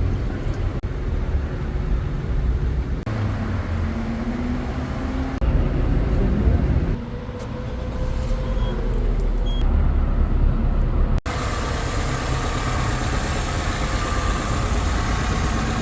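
Car engine running with a heavy low rumble, its pitch rising briefly about four to six seconds in. The sound changes abruptly about three, seven and eleven seconds in.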